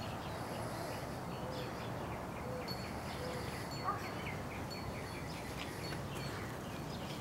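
Steady outdoor background noise with small birds chirping now and then, and one brief louder sound about four seconds in.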